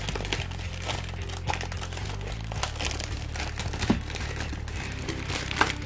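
Clear plastic wrapper crinkling and crackling as it is peeled off a cardboard display box, in many small irregular crackles, with background music underneath.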